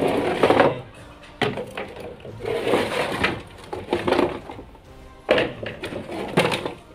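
Plastic and metal poultry trays, feeders and water drinkers being picked up, shifted and set down on a concrete floor while being sorted: a run of clattering knocks and scrapes, about one every second, over background music.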